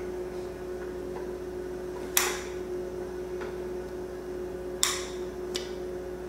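Brass pressure-washer pump parts clinking as they are handled: two sharp metallic clinks about two and five seconds in, a lighter one just after the second, over a steady low hum.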